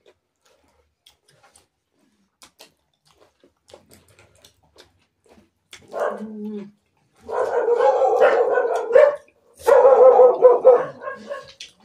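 A dog barking in three loud bouts, starting about six seconds in, each run lasting up to two seconds. Before the barking there are only faint scattered clicks.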